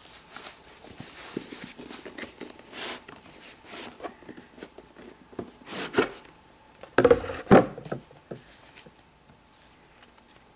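A cardboard gift box being handled and opened: scattered light rubs and taps, then a few louder scrapes as the lid slides off the box base, about six to seven and a half seconds in.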